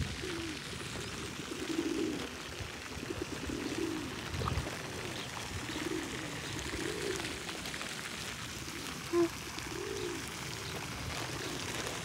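Feral rock pigeons cooing: a run of low, rounded coos, about one a second, with one shorter, sharper note about nine seconds in.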